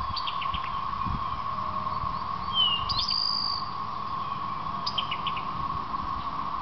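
Distant chorus of periodical cicadas: a steady, whirling drone held on one pitch without a break. Songbirds sing short whistled phrases over it three times.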